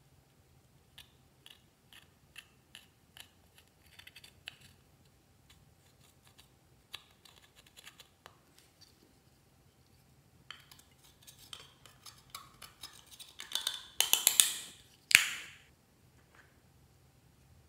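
A thin metal tool scraping and picking at a pressed eyeshadow pan in a plastic compact, crumbling the powder. It begins as separate light clicks and scratches, then becomes denser scraping that builds to a few loud strokes near the end.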